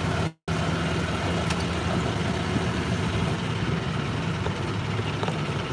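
Golf cart running along as it is driven: a steady low motor hum with road and wind noise. The sound drops out for an instant about half a second in.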